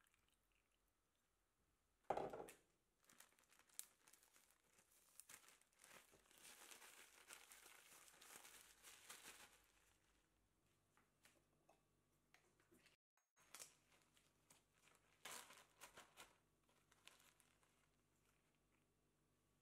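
Plastic zip-top bag crinkling and rustling in short, quiet spells as it is handled and squeezed to mix melted butter into crushed digestive biscuit crumbs. A sharper rustle comes about two seconds in.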